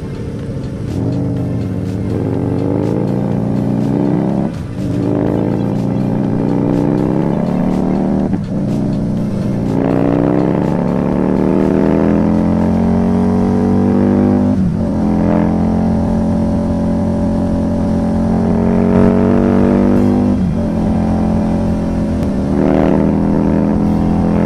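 Husqvarna Nuda 900R's parallel-twin engine accelerating hard through the gears. The engine note climbs in pitch in each gear and breaks briefly at each of four upshifts, about five, eight, fifteen and twenty seconds in.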